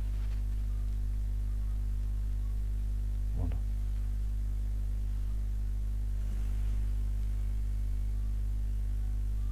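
Steady electrical mains hum with its overtones on the recording, with one short faint sound about three and a half seconds in.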